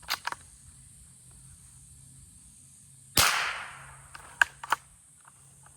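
A Rossi bolt-action .22 LR rifle fires a single shot a little past three seconds in: a sharp crack with a short echo, from a round the shooter calls extremely quiet. A few quick clicks of the bolt being worked follow within about a second and a half, and a couple of similar clicks come right at the start.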